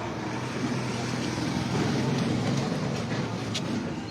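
Low rumble of a motor vehicle's engine, swelling to its loudest about halfway through and easing off again.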